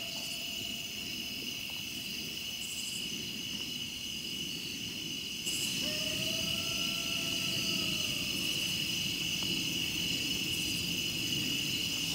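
Night insects, crickets among them, trilling steadily. About five seconds in, a single faint, long howl rises slightly and then falls away: a distant coyote answering a locator howl.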